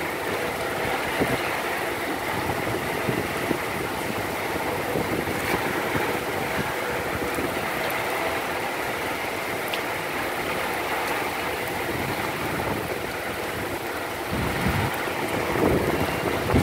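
Steady noise of a heavy storm, wind and rain, with a few deeper gusts near the end.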